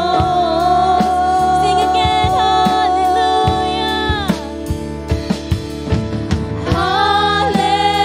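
Live worship band: two women singing a slow, held melody over a drum kit and bass guitar. The voices drop out briefly about halfway through while the drums keep time, then come back in.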